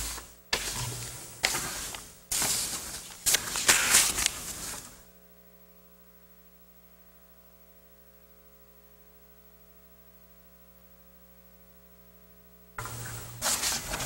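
Paper rustling and shuffling close to table microphones in irregular bursts for about the first five seconds. Then near silence with a faint steady hum, and the rustling starts again near the end.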